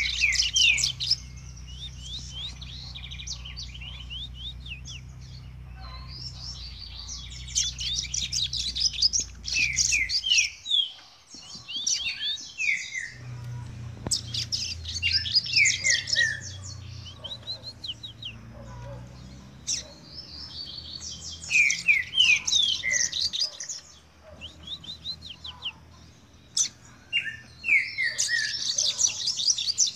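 A caged male double-collared seedeater (coleiro) singing, its song still being polished in training: repeated phrases of fast high trills mixed with clear downward-sweeping notes, broken by short pauses. A steady low hum runs underneath and drops out briefly about a third of the way in.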